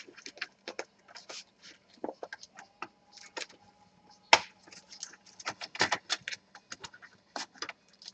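Plastic clicks, creaks and scrapes as the palmrest of a Dell Inspiron 15 3000 laptop is pressed and pried away from the base, with one sharp snap about four seconds in. The palmrest is being hard to free because of a broken hinge.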